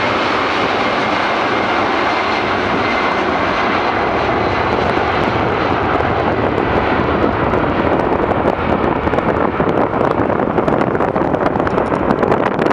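Boeing 747-400F freighter's four jet engines running at takeoff thrust: a loud, steady rush with a faint whine early on. From about eight seconds in it turns ragged and crackling as the aircraft rolls away.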